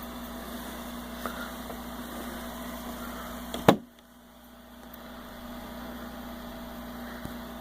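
Steady low hum with hiss, broken by one sharp click a little past halfway, after which the hum drops away and slowly swells back.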